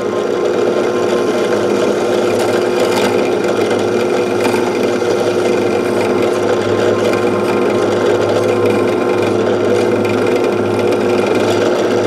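Power drill running steadily as its bit bores through a plastic bottle cap.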